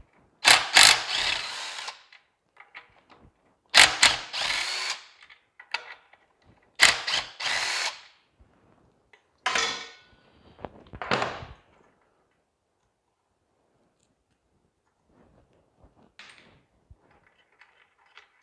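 Power drill-driver with a half-inch socket running in five short bursts, spinning the cylinder head bolts out of a Tecumseh HS50 small engine, with faint clinks of the loosened bolts being handled near the end.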